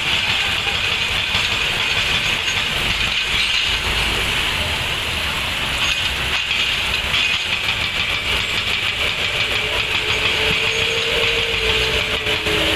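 Excavator running steadily with a hissing, rumbling mechanical noise; a faint steady tone joins in near the end.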